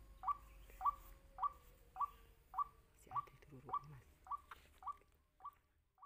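White-breasted waterhen calling: a short, identical note repeated steadily about twice a second, growing fainter toward the end.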